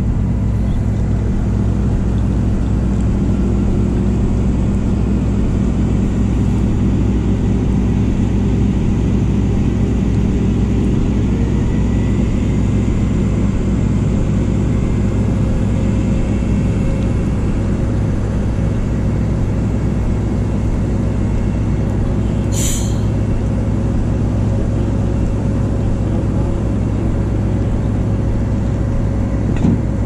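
A recovery truck's engine running steadily through the pull-out, its pitch lifting slightly a little before halfway. One short high squeal sounds about two-thirds of the way through.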